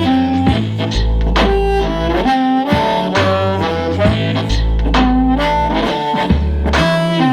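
Background music: an instrumental passage of a song, a melodic lead line over a steady bass.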